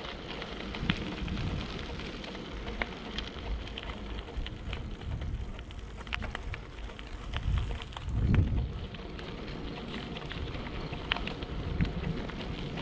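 Wind buffeting the microphone of a bike-mounted or hand-held camera, with a strong gust about 8 seconds in, over a steady crackle of small scattered clicks.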